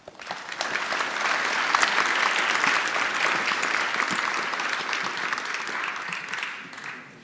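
Audience applauding, swelling over the first second, then dying away near the end.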